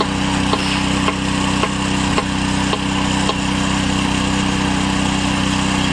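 Engine-driven hydraulic rail weld trimmer running steadily as it shears the excess thermit weld metal off the rail, with faint regular ticks about twice a second for the first few seconds.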